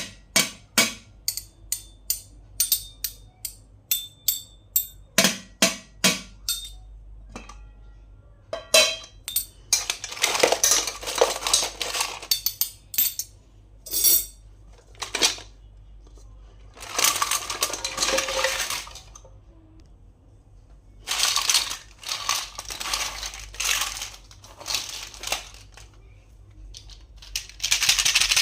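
Small plastic toys and their packaging being handled: a quick run of sharp clicks and taps, then several stretches of rustling and scraping lasting a second or more each.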